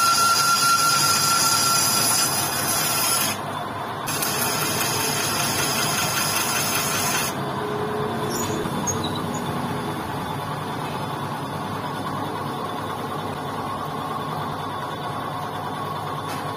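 Lathe spinning a spoked motorcycle wheel while a cutting tool resurfaces the inside of its brake drum: a harsh, high cutting noise with a steady high whine for about three seconds, a brief break, the cut again for a few seconds, then a lower, steadier running sound for the rest.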